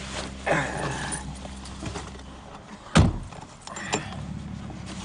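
A loud single thump about three seconds in, followed by a lighter knock about a second later, among quieter indoor handling noises.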